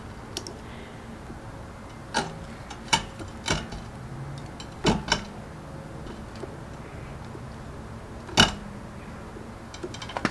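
Steel pliers clicking and scraping against a scooter's handlebar end as they grip and work loose a stripped plastic mirror-mount insert. There are a handful of separate sharp clicks and knocks, the loudest about eight seconds in.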